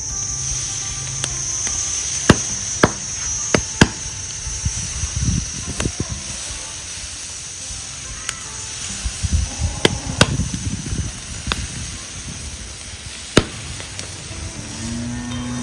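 Pork belly grilling over charcoal, its fat popping and crackling on the coals in sharp, scattered snaps over a low rumble.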